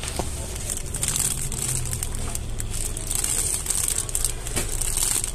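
Clear plastic packaging crinkling in irregular crackles as a bagged pack of squishy toys is picked up and handled.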